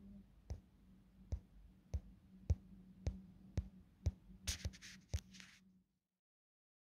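Faint, evenly spaced clicks, about two a second, over a low steady hum, with a brief hiss near the end; the sound then cuts off abruptly to silence.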